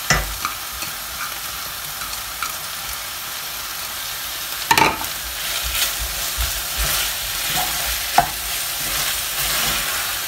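Chicken and potato filling sizzling in a stainless steel pan while a spatula stirs it through freshly added spring onions, with a steady hiss of frying and scraping. The spatula knocks sharply against the pan at the start, about five seconds in and again around eight seconds.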